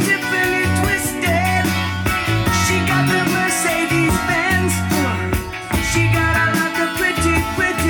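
Rock music with guitar over a bass line.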